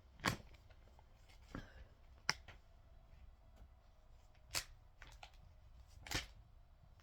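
A few sharp light clicks and taps, about five, spread out with quiet between them, as sealed bags of Lego pieces are handled.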